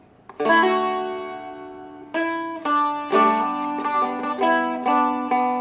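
Seagull Merlin M4, a four-string dulcimer-style instrument, picking a slow single-note melody. The first note comes about half a second in, and each plucked note rings and fades under the next.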